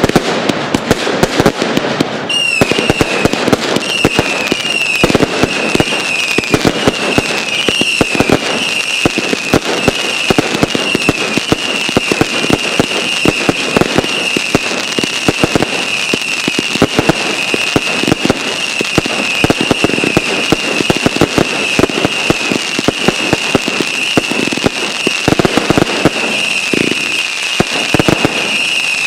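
Fireworks show: a dense, irregular barrage of bangs and crackling bursts. About two seconds in, a high, wavering whistle joins it and carries on throughout.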